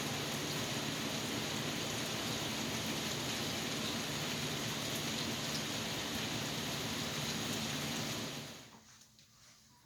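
Steady rain, a dense even hiss that fades out near the end.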